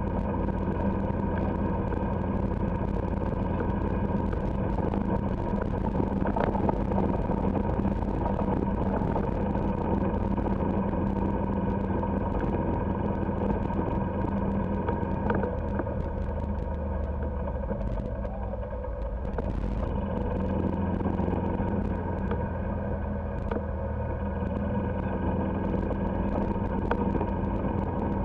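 Golf cart driving along a paved road, its motor giving a steady hum that eases off briefly about two-thirds of the way through.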